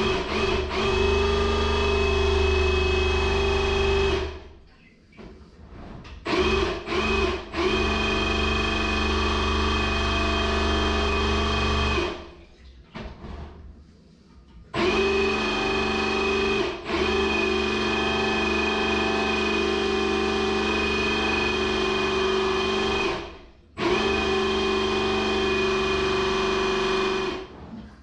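Electric drain-cleaning machine's motor running in four long bursts that start and stop abruptly, with a steady hum and whine, while a blocked toilet drain is being cleared.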